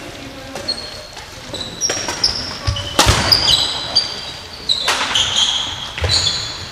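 Badminton rally in a sports hall: sharp racket strikes on the shuttlecock about a second or so apart, the loudest a little past the middle, mixed with many short, high squeaks of court shoes on the floor, in an echoing hall.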